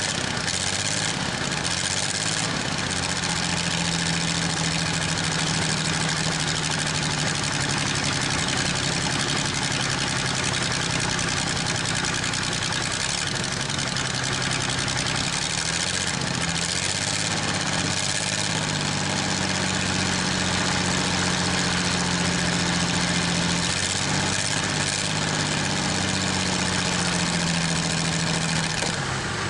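Chrysler industrial 218 flathead six in a Worthington tractor idling steadily, revived after sitting for decades and now firing on all six cylinders. It has some rattle, which the owner puts down to a bad water pump.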